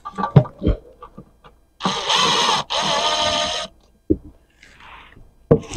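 Cordless power tool running against the engine's oil pan bolts in two bursts of about a second each, with a wavering motor whine. A few short knocks of metal and tool against the pan come before and after.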